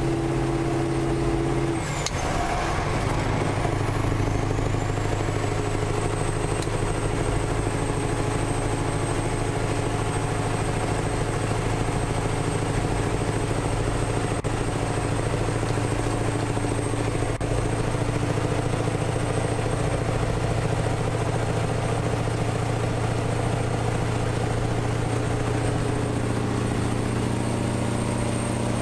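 A lorry's V8 diesel engine running steadily at motorway cruising speed, with road and wind rumble. About two seconds in the engine note breaks briefly and settles at a different pitch.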